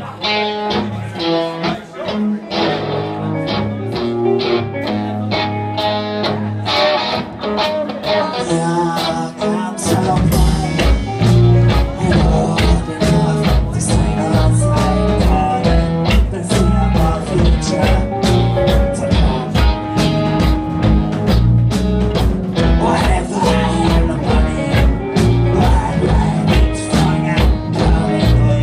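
Live rock band playing: electric guitars play alone at first, then bass and drums come in about ten seconds in and the full band plays on.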